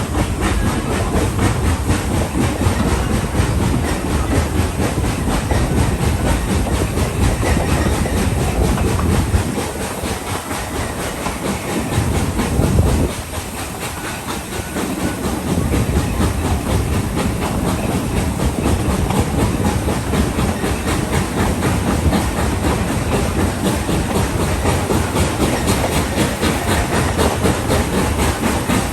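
Ride noise of a narrow-gauge passenger coach behind the Tweetsie No. 12 steam locomotive: steel wheels rumbling and clacking over the rails, with hiss. About ten seconds in the rumble drops lower and quieter for a few seconds, then comes back.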